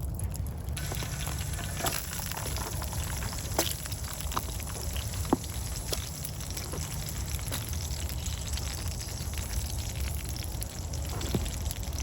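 Food frying in a pan over a campfire: a steady sizzle with a few scattered sharp pops.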